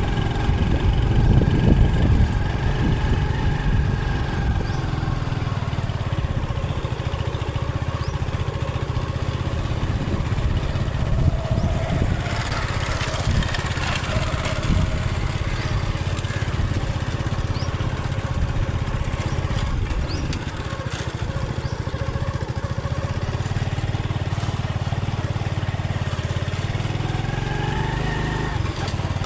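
Honda CD70's air-cooled 72cc single-cylinder four-stroke engine running steadily, with the revs rising near the end. A brief hiss is heard about halfway through.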